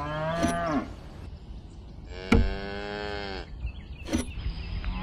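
Cow mooing twice: a call that rises and falls in the first second, then a longer, steady moo starting about two seconds in. A few sharp clicks come between them.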